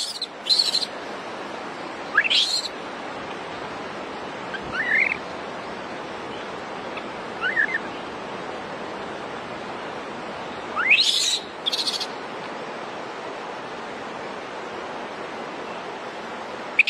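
Baby macaque crying for its mother: short, high-pitched rising calls every few seconds, some in quick pairs, over a steady background hiss.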